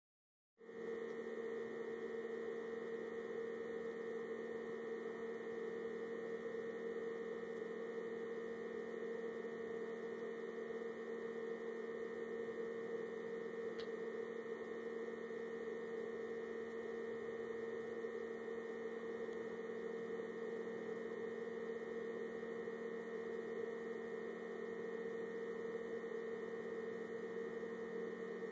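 A steady, unchanging hum made of a few fixed tones, starting abruptly just under a second in.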